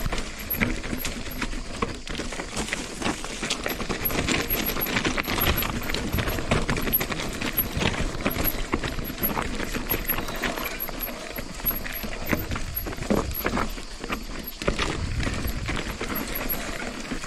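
Mountain bike clattering down a rocky trail: a dense, irregular stream of knocks and rattles from tyres and frame hitting rock, with wind rumbling on the microphone.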